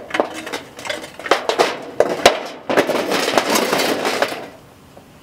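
Small fireplace shovel scraping and clinking against a metal charcoal chimney and hot charcoal briquettes as coals are scooped out: a run of sharp knocks, then a longer rattling scrape from about three seconds in, which stops suddenly about a second before the end.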